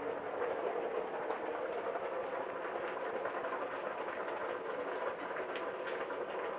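A steady mechanical running noise with a faint, even rattle, unchanging in level.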